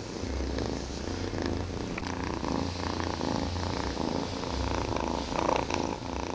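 Domestic cat purring: a low rumble that swells and eases in cycles of about a second.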